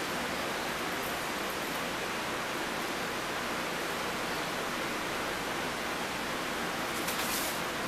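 Steady, even hiss of background noise. A brief brighter rustle comes about seven seconds in.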